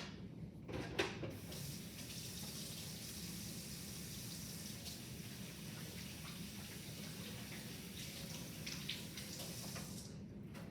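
Sink tap running steadily while hands are washed under it, shut off near the end. A couple of sharp knocks come just before the water starts, the louder one about a second in.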